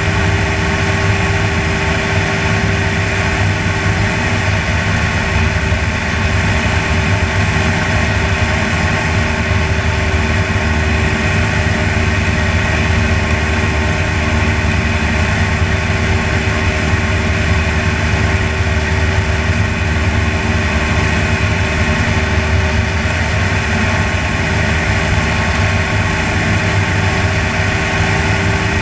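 Small propeller aircraft's engine and propeller droning steadily in level cruise, an even hum with no change in pitch, mixed with airflow noise.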